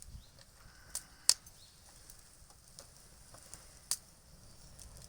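A few sharp clicks or knocks, the loudest about a second and a half in and another near four seconds, over a faint steady hiss.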